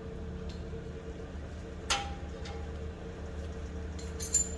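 Light metallic clicks of hand tools being handled, one sharp click about two seconds in with a brief ring and a smaller one near the end, over a steady low hum.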